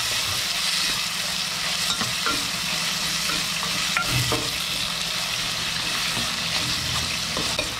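Hot oil sizzling steadily in frying pans as tomato, garlic and onion are sautéed alongside frying tilapia, with a few light knocks of a spatula against the pan.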